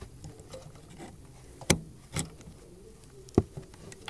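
Sharp metal clicks and taps from two screwdrivers working against the shifter's spring and linkage, three of them louder than the rest.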